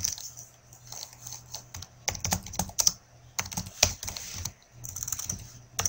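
Typing on a computer keyboard: irregular key clicks, thickest in the middle.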